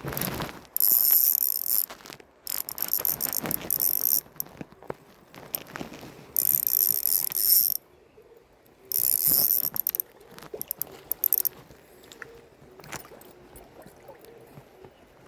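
Spinning fishing reel cranked in short bursts, its gears whirring, about five times with pauses between, as line is wound in on an ultralight rod. A knock at the very start.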